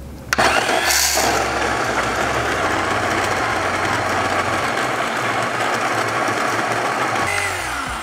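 WPM Welhome Pro ZD-10T conical burr coffee grinder switching on about a third of a second in and grinding a dose of beans: a steady, quite loud motor and burr grind. Shortly before the end the motor cuts off and its whine falls away as it spins down.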